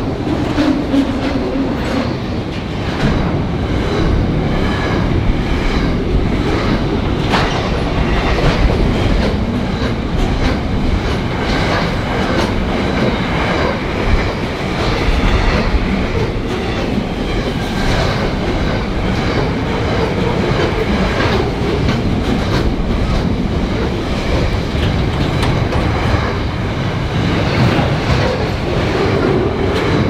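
Container wagons of a long freight train rolling past close by: a steady loud rumble of wheels on rail, with repeated clickety-clack as the wheels run over rail joints.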